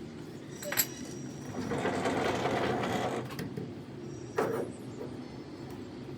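Metal parts clinking and rattling in a machine shop over a steady low machine hum: a sharp ringing clink, a couple of seconds of rapid rattling, then another knock.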